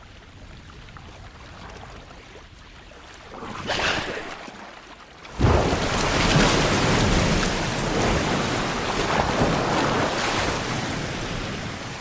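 Low lapping of open sea, a brief rush of water about four seconds in, then a sudden heavy splash. Several seconds of churning, crashing water follow as killer whales ram a Steller sea lion at the surface.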